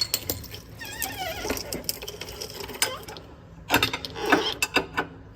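Hand tools working a seized suspension bolt: metal clicks and clinks of wrench and socket, with ratchet-like clicking, the loudest cluster about four seconds in.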